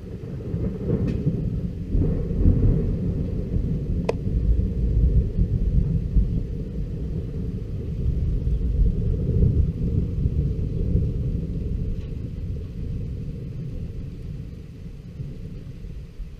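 Long rolling thunder rumble that swells within about a second, stays loud for many seconds, then slowly dies away. It is a sign, in the storm watcher's words, that it is no longer safe to stay outdoors.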